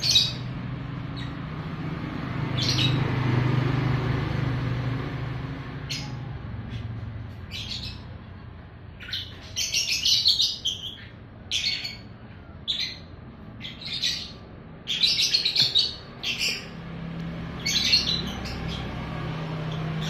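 Lovebirds giving short, shrill chirps and squawks, a few scattered at first and then coming in quick clusters through the middle and latter part.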